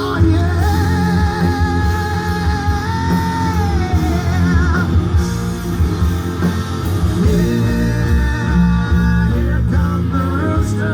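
Hard rock song playing: heavy guitars and drums under a long held, wavering lead line.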